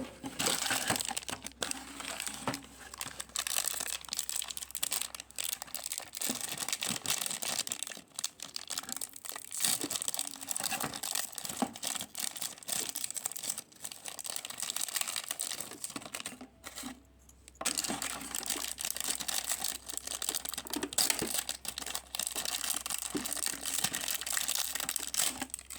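Packaging crinkling and tearing as it is unwrapped by hand, a continuous run of irregular crackles and rustles with a brief pause a little past the middle.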